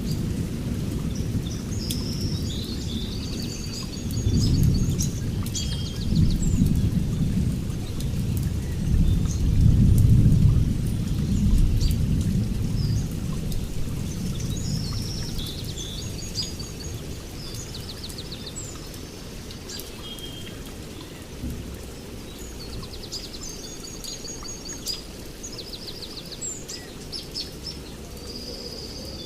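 Steady rain with a low rolling rumble of thunder, loudest about four to twelve seconds in and fading away after. Small birds chirp and trill in several short bouts over the rain.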